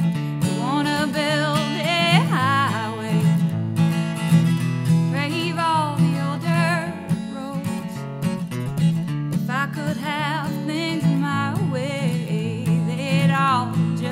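A woman singing a country song with vibrato while strumming a steel-string acoustic guitar. The singing comes in three phrases, with short gaps where only the guitar is heard.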